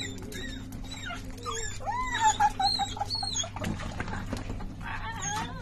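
Dog whining excitedly in a string of high cries that rise and fall, the longest and loudest about two seconds in: the whines of a dog greeting a favourite person.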